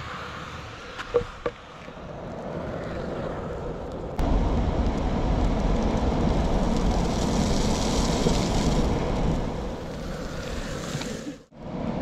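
Wheels rolling over an asphalt path, with wind rushing on the microphone, and a couple of sharp clicks about a second in. The rushing rumble gets louder from about four seconds in.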